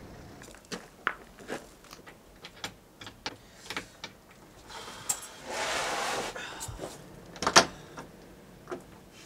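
Keys jangling and clicking at a door lock, with a string of small clicks and knocks as the handle and lock are worked. A rustling scrape comes about five and a half seconds in, and a sharp clack, the loudest sound, about seven and a half seconds in.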